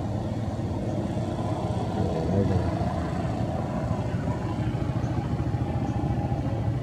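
Steady low rumble of a motor vehicle engine running, with a small swell about two seconds in.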